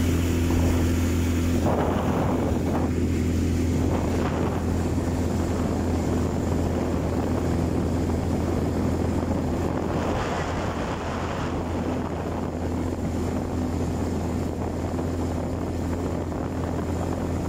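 ATV engine running steadily at cruising speed while being ridden, a constant low hum, with gusts of wind on the microphone about 2, 4 and 10 seconds in.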